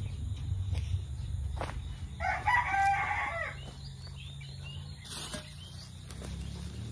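A rooster crows once, a call of about a second and a half starting a couple of seconds in, over a low steady rumble.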